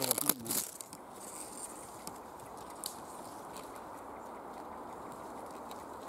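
Crackling and rustling of twigs and leaves for about the first half-second as a camera on an extended tripod is handled among the branches, then a steady low hiss of background for the rest.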